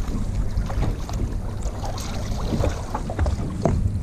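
Wind buffeting the microphone on a small boat on choppy water, with water slapping around the hull and a few short knocks and splashes as a fish is brought to the landing net.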